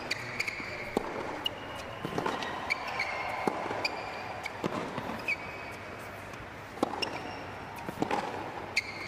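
Tennis rally on a hard court: racquets striking the ball back and forth as sharp pops, mixed with short high squeaks of shoes on the court.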